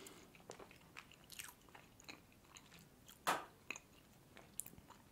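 Soft, quiet chewing of a mouthful of cheesecake, with small wet mouth and lip clicks, and one louder short mouth sound about three seconds in.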